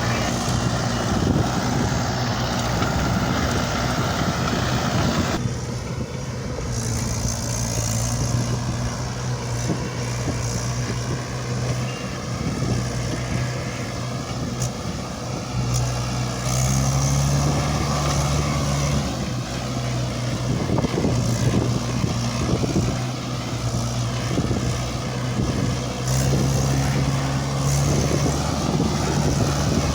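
Diesel engine of a JCB 3DX backhoe loader running steadily under load, stepping up and down in pitch several times as it is revved while working.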